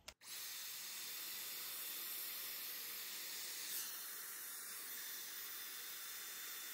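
Dyson Airwrap hair styler blowing air at the roots of the hair: a steady, high hiss of rushing air that starts abruptly just after the beginning.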